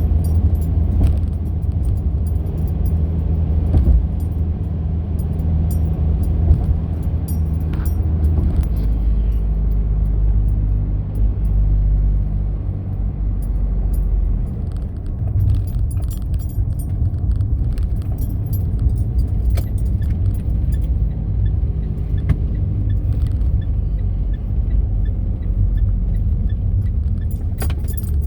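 Car on the move: a steady low engine and road drone whose pitch shifts about nine seconds in, with light clicking and jangling from something loose rattling as it goes.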